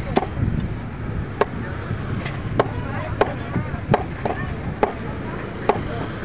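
A long knife chopping fish fillets into pieces on a wooden chopping block. Each stroke gives a sharp knock of the blade striking the wood, about one a second and unevenly spaced.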